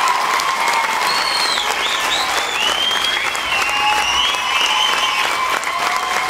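Audience applause: many hands clapping in a dense, steady patter, with a few high, bending tones sounding over it in the middle.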